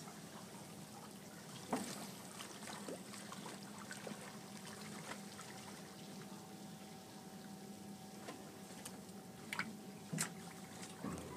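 Water trickling and lapping along an aluminium boat's hull as it moves slowly over calm water, over a faint steady hum. A few sharp clicks break through, the loudest about two seconds in and near the end.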